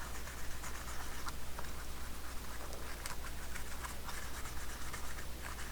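Toothbrush scrubbing a small CB radio meter wet with Formula 409 cleaner: irregular short scratchy strokes.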